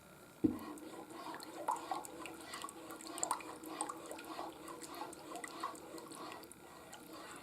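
Cream sauce bubbling at a low boil in a multicooker pot, with many small irregular pops over a low steady hum. There is a single knock about half a second in.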